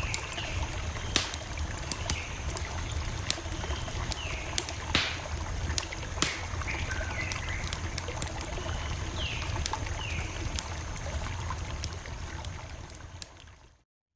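Campfire crackling, with frequent sharp pops over a steady low rumble; the sound fades out near the end.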